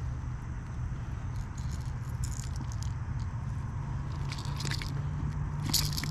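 Several short bursts of rattling and clicking from a lipless crankbait and its treble hooks as they are worked free of a small largemouth bass's mouth by hand. A steady low rumble runs underneath.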